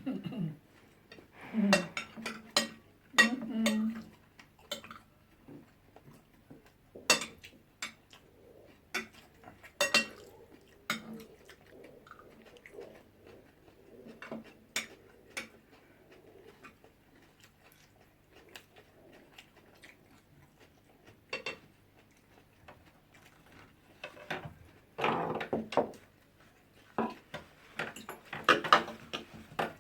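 Cutlery clinking and scraping against plates during a meal, in irregular scattered clicks, with a few louder clusters of clatter.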